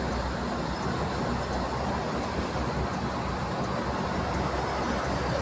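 Steady highway traffic noise: tyre roar with a low engine drone from a coach bus and cars moving alongside at speed.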